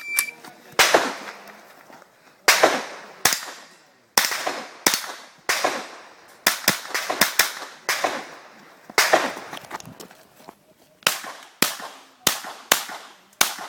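A short electronic shot-timer beep, then a stage of rapid rifle fire from an IPSC mini rifle, typically a .22 rimfire. About twenty sharp shots come in irregular strings, with a fast burst of half a dozen near the middle, each shot trailing off in echo.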